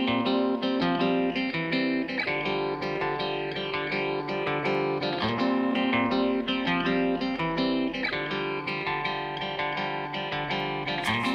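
Background music led by guitar, a steady run of plucked notes.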